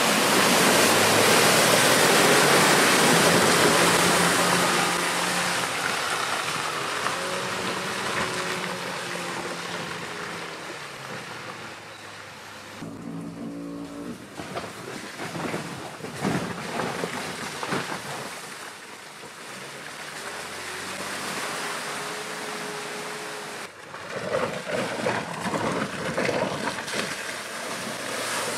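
Land Rover Defender 90 P300's 2.0-litre four-cylinder petrol engine pulling the SUV along a muddy forest track, with its tyres splashing and churning through mud and standing water. It is loudest as it passes close in the first few seconds, and the sound changes abruptly twice where the shots cut.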